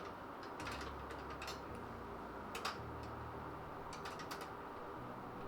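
Scattered small metal clicks and ticks as the PC case's expansion-slot cover brackets are worked loose after their screws are undone, over a faint low hum.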